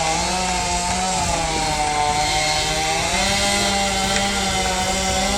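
Two-stroke chainsaw running at high revs, its pitch sagging and recovering a couple of times.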